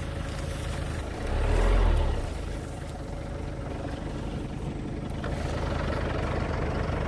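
A pickup truck's engine idling, a steady low rumble, swelling louder briefly about a second and a half in.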